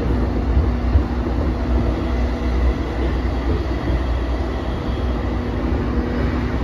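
Running sound inside a JR East E233 series 5000 electric train car (set F53) in motion: a steady low rumble of wheels on rail, with a faint hum that fades for a few seconds midway and comes back.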